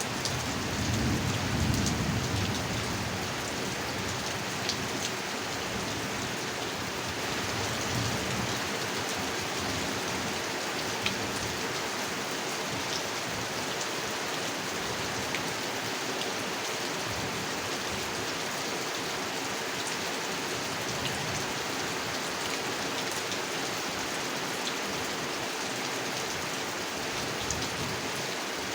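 Heavy rain falling steadily on a pond, with scattered sharp drop ticks and a low rumble of thunder in the first couple of seconds.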